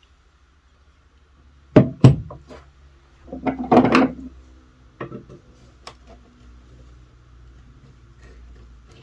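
Metal and wooden parts of an old Stanley hand plane knocking and clattering as they are handled. There are two sharp knocks close together about two seconds in, a short rattling clatter with a brief ring a second or so later, and then a few lighter taps.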